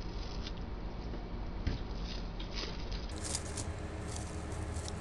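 Thin cellophane being unfolded and handled, giving scattered faint crinkles and crackles.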